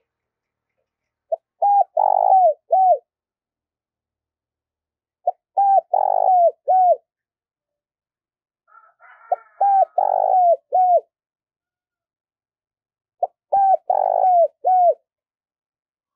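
Caged decoy spotted dove cooing: four phrases about four seconds apart, each a short opening note followed by a run of deep coos with a longer one in the middle. Faint chirps come just before the third phrase.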